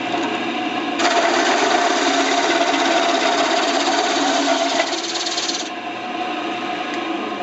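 Drill press running with a swinging circle cutter. From about a second in, the cutter bites into the workpiece and gives a loud, rough cutting noise over the steady motor hum. The cut noise drops away a little after halfway, leaving the machine running.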